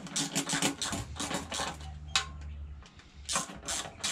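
Hand ratchet clicking quickly in short spells as it runs the sump pan bolts down on a Ford 351 Cleveland V8. One louder click rings briefly in the middle, and a steady low hum sits under it in the middle.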